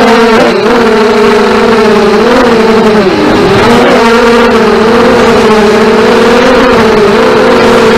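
FPV racing drones' brushless motors and propellers whining steadily, the pitch wavering up and down as the throttle changes.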